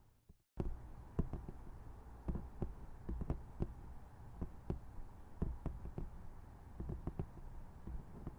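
Soft, irregular ASMR tapping: a run of quick taps and knocks, several a second, heavy in the low end. The sound cuts out completely for about half a second at the very start, then the tapping resumes.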